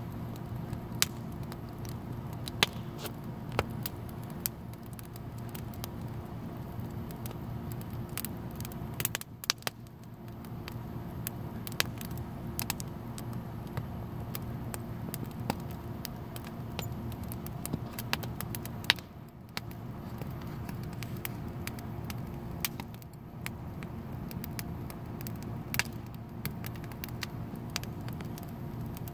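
Wood fire of sticks and branches burning in an open firepit, crackling with sharp pops at irregular intervals, over a steady low hum.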